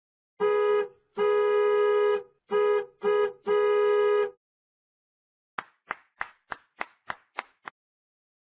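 Sound effects dubbed over the footage: a steady, horn-like electronic tone sounded five times in a short-long-short-short-long pattern, then eight quick short blips, about three a second.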